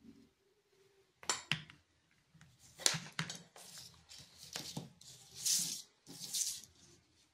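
Handling noise: a series of sharp clicks and short scraping rustles as hands move wires and a small circuit board close to the microphone.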